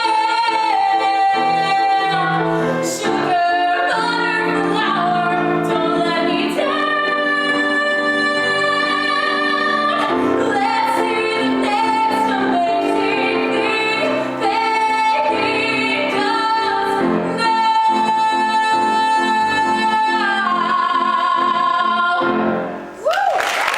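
A woman singing a musical-theatre ballad solo over instrumental accompaniment, holding long sustained notes; the song ends near the close and applause breaks out just before the end.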